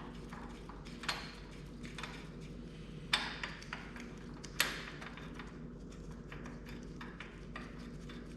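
Hand tools clicking and tapping on metal engine parts while a lawn tractor engine's muffler is worked off, with many small irregular ticks and three sharper clicks about one, three and four and a half seconds in.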